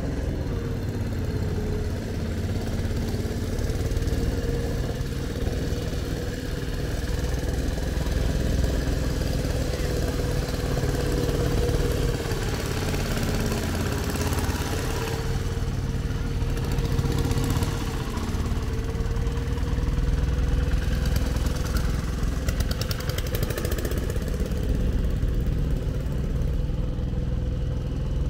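Small passenger ferry boat's engine running steadily, a constant low drone with a steady hum over it.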